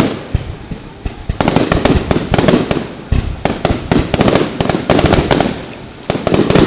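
Aerial fireworks bursting in rapid volleys of bangs and crackles, coming in three dense clusters with short lulls between them.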